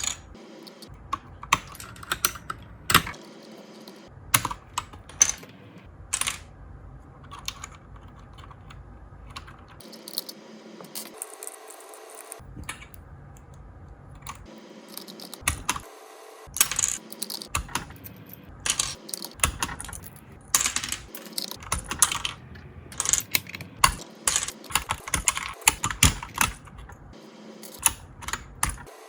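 Keyboard fitted with Mario-themed keycaps being typed on: scattered single keystrokes at first, then quicker runs of clacking keys from about halfway through.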